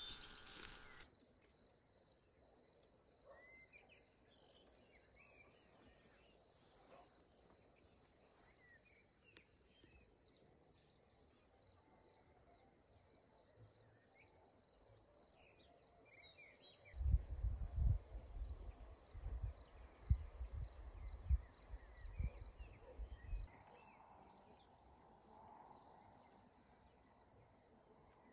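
Insects, crickets, trilling in one steady high-pitched drone, with scattered faint chirps over it. Between about 17 and 23 seconds in, a run of low thumps and rumbles, louder than the trilling.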